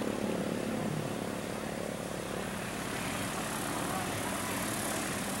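Van's RV-10 light aircraft taxiing, its piston engine and propeller running steadily at low power.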